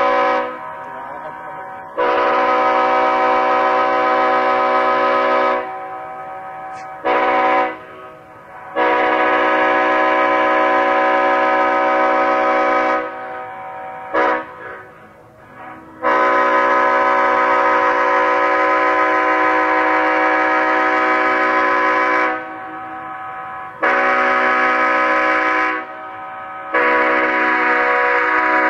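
Leslie S5T five-chime locomotive air horn blown in a series of blasts, mostly long ones of several seconds with a couple of short toots, each sounding the same steady multi-note chord.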